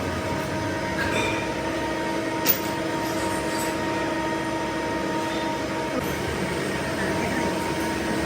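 Workshop machinery running steadily with a constant hum, and a single sharp clink about two and a half seconds in.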